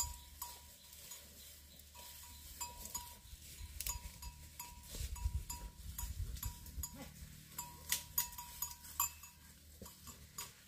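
Water buffalo feeding on a pile of fresh-cut grass, tearing and chewing the stalks with irregular crisp crunches and short sharp ticks.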